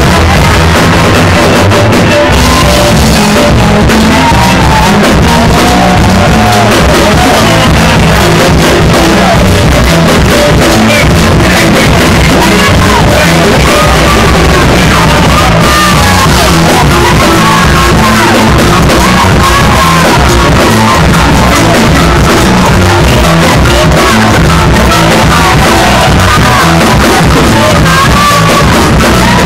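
Loud live worship music: a man singing and shouting into a microphone over a band with a steady beat.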